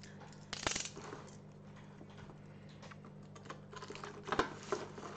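Cutter knife clicking and slicing into a thin clear plastic bag, with the plastic crinkling; a handful of sharp clicks, the loudest about half a second in and again near the end, over a faint steady hum.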